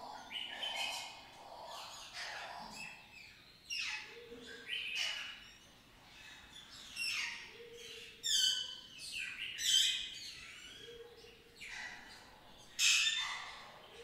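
Several songbirds singing at once: bright, high song phrases and fast trills that step downward, overlapping one another, with a short low note repeating about every three seconds beneath them.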